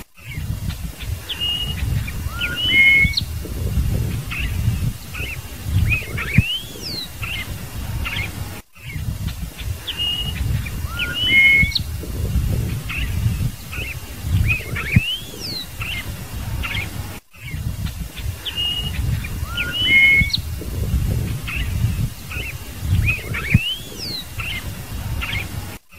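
Scarlet-headed blackbird (cardeal-do-banhado) singing a phrase of clear whistled notes with rising and falling glides. The same recording loops three times, about every eight and a half seconds, each time after a brief dropout. An uneven low rumble runs beneath the song.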